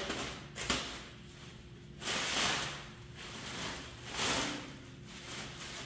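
Several short rustling handling noises, the longest about two seconds in, over a faint steady hum.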